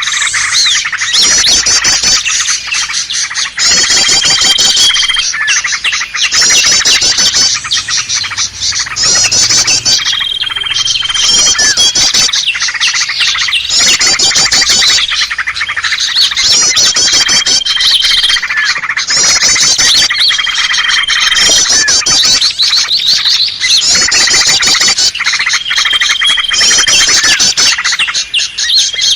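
A looped bird-lure recording of small songbirds calling: dense, loud, high chattering trills, with a short steady whistle recurring every few seconds as the loop repeats.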